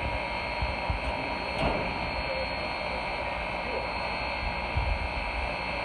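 Steady hiss and hum of a steam locomotive standing at rest, with a few dull low bumps; no whistle is sounding.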